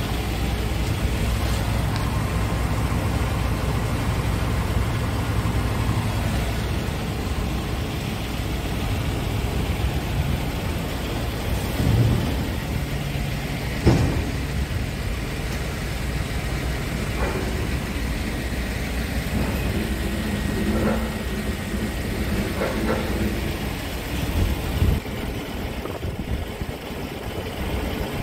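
Heavy diesel truck engine idling steadily, with two short knocks about halfway through.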